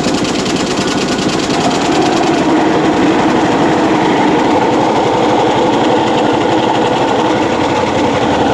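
Soybean processing machine running loudly with a fast, even mechanical rattle. About two and a half seconds in, its sound turns lower and fuller as the upper hiss drops away.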